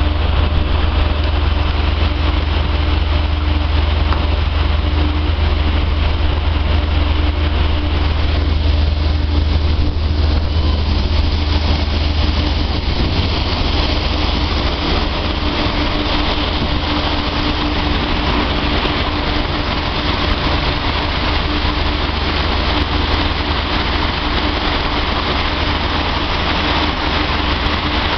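Loud, steady machinery running aboard a fishing vessel's fish-handling line, with a deep hum, a constant mid-pitched tone and a rushing hiss; the deep hum eases a little about halfway through.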